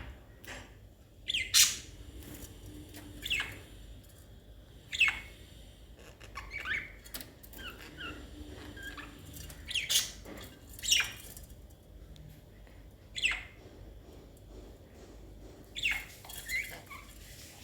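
Pet budgerigars calling: short, sharp chirps and squawks come at irregular intervals, about a dozen in all, with softer twittering chatter in between.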